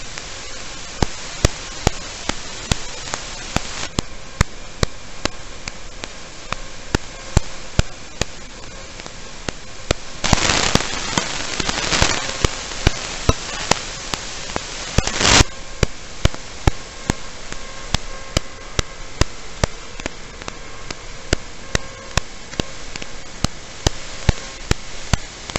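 Static hiss from an analog FPV video receiver's audio channel, recorded by the goggles' DVR, with sharp clicks about twice a second. The static swells into a louder rush about ten seconds in for two seconds, and again briefly a few seconds later.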